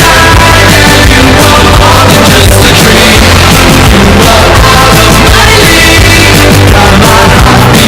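Loud music with a singing voice, kept at a steady, very high level throughout.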